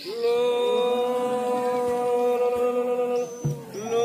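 A voice chanting long drawn-out notes on one steady pitch in a ritual chant. One note is held for about three seconds, then after a short break a second long note begins near the end.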